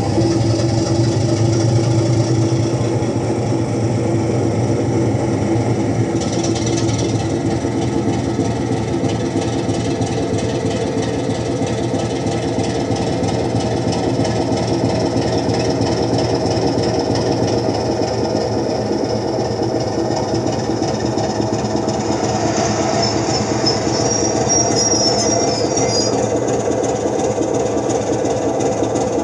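Recorded British Rail Class 25 diesel locomotive engine sound, played through exciters on the back scene of a model railway and driven by the DC controller so it follows the model's running. The engine note runs steadily, with a brief high-pitched sound about 24 seconds in.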